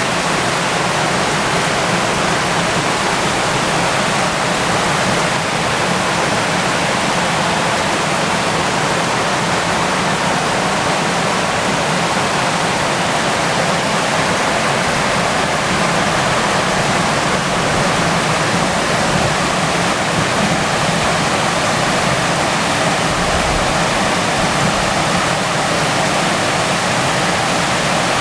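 Flash-flood water rushing in a steady, loud, unbroken torrent.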